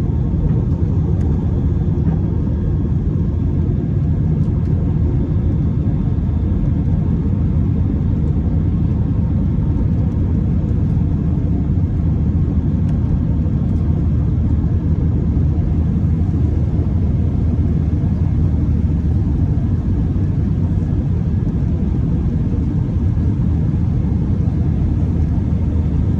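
Steady low rumble of an Airbus A319 airliner's cabin: engine and airflow noise, unchanging throughout.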